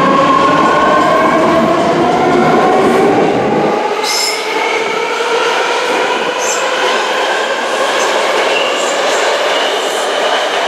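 BART Bombardier MOVIA (D car) train pulling out of the station, its motor whine rising steadily in pitch as it gathers speed. Brief high wheel squeals come about four and six and a half seconds in.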